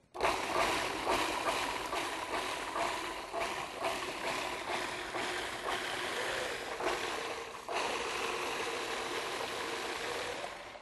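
A KitchenAid food processor's motor running as it purees steamed carrots and liquid into soup. It starts abruptly, runs steadily and stops near the end.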